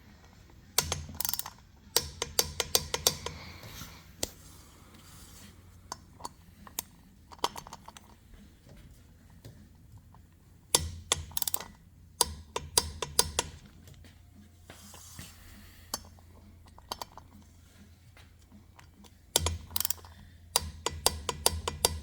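Ratchet of a torque wrench clicking in quick runs, in three bursts several seconds apart, as brake rotor bolts are tightened down to 20 foot-pounds.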